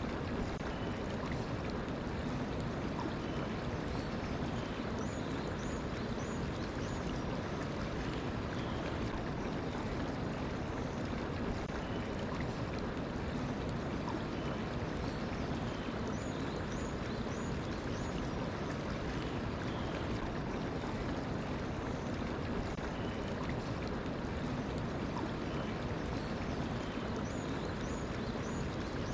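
Mountain stream flowing steadily, with faint high bird chirps coming in short runs of three or four notes, three times.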